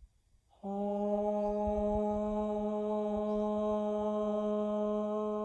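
A single voice chanting a long, steady "haaa" on one held pitch, starting about half a second in: the heart's healing sound of the Six Healing Sounds, voiced on the exhale.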